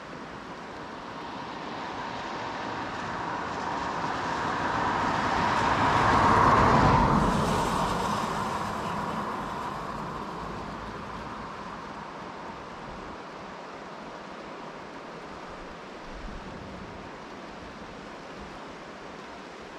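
A vehicle passing on a wet road, its tyre hiss swelling for about six seconds and then fading away, over the steady rush of rain and a river.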